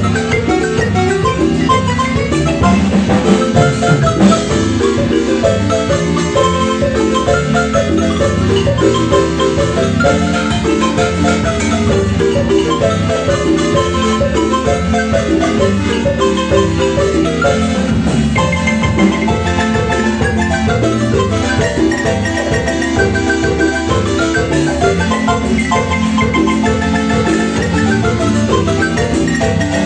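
Marimba music: many quick struck wooden-bar notes in a steady, dance-like rhythm over a bass line.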